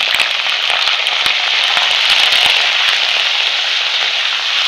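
Freshly added raw chicken pieces frying in hot oil: a loud, steady sizzle with many sharp crackles and spits.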